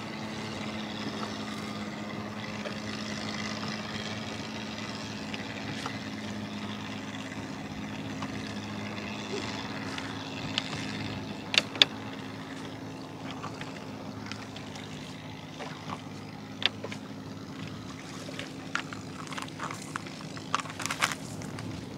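A small boat's engine running steadily at a low, even pitch. Sharp knocks and clatter break in a little before halfway, again about two-thirds through, and several times near the end.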